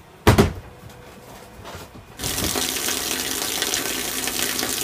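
A sharp knock about a third of a second in, then about two seconds later a steady hiss of shower water running begins and keeps on.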